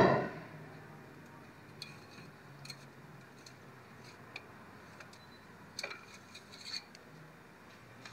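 Faint, scattered clicks and light taps, five or six of them about a second apart, from hands handling the plastic oil funnel and oil jug at the engine's filler neck.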